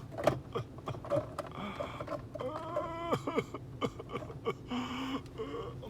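A man's wordless vocal sounds, short hums or murmurs with shifting pitch, one falling around the middle, mixed with scattered clicks and light rustling.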